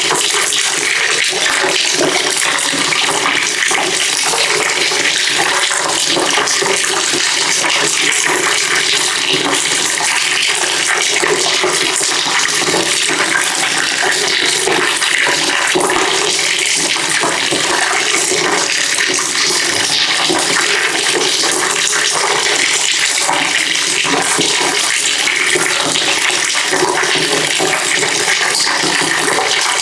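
Water pouring steadily into a bucket, a continuous splashing rush at an even level.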